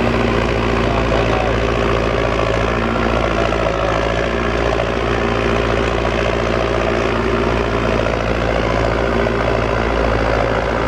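Belarus 825 tractor's four-cylinder diesel engine running steadily under load while driving a rear-mounted rotary tiller, which churns through dry soil.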